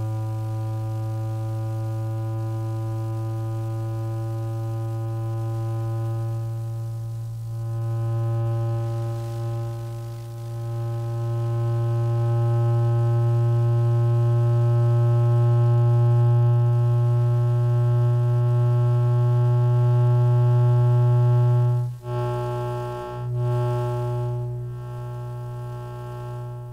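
Electromagnetic emission of a laptop's cooling-fan motor, picked up by a bare loudspeaker coil and heard as a steady electric buzz with many overtones. It creeps slowly up in pitch as the fan speeds up with the CPU warming under load. Near the end it cuts out for an instant and wavers.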